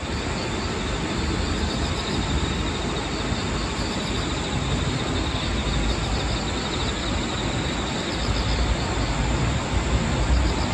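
Outdoor ambience of steady rushing wind noise, heaviest in the low rumble, with a fast pulsing chirr running high above it.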